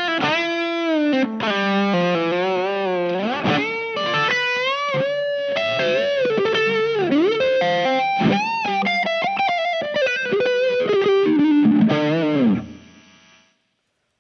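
Overdriven electric guitar lead, with many string bends and vibrato, from a 1979 Yamaha SG500's humbuckers through the overdrive (Jekyll) side of a silver Visual Sound Jekyll & Hyde V1 pedal, all knobs at noon, with some reverb: a Tube Screamer-like overdrive. The last note rings out and fades away about twelve and a half seconds in.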